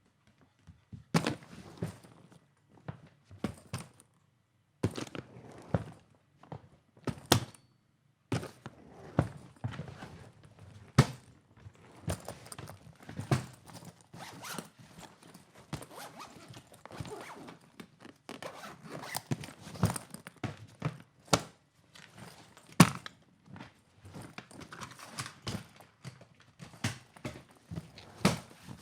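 Luggage being handled: irregular thumps and knocks of a bag being set down and moved, with leather creaking and rustling and zipper-like rasps between them, and a few sharper bangs.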